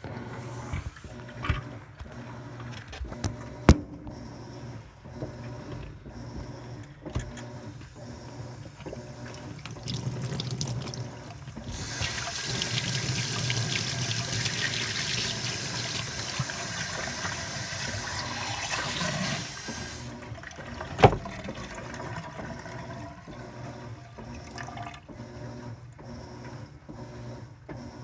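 Top-load impeller washing machine running, with a steady low hum and a regular pulsing. In the middle, water rushes loudly for about eight seconds and then stops, followed a second later by a sharp knock.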